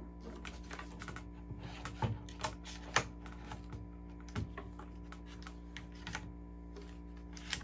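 Light, irregular clicks and taps of hands working on a bolt-action rifle's action, the sharpest about three seconds in, over a steady low hum.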